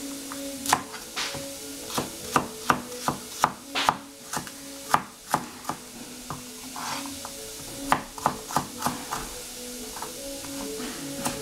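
Kitchen knife chopping celery stalks on a plastic cutting board: sharp, irregular chops in quick runs, with a pause of a couple of seconds midway.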